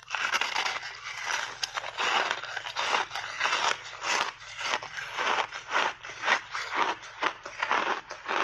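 Crunchy block ice being bitten and chewed: a dense, rapid run of crunches and cracks.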